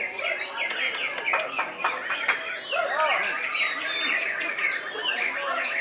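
White-rumped shamas (murai batu) singing: a busy, varied run of quick chirps, trills and whistles with no pause.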